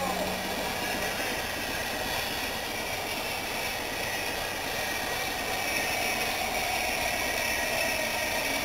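Steam locomotive No. 30926, a Southern Railway Schools class 4-4-0, moving slowly with a steady hiss of steam escaping from its open cylinder drain cocks.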